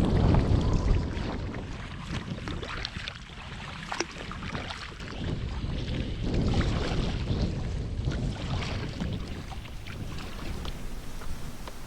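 Canoe being paddled into a headwind: wind buffeting the microphone, heaviest in the first second, over water splashing and lapping around the boat, with a sharp click about four seconds in.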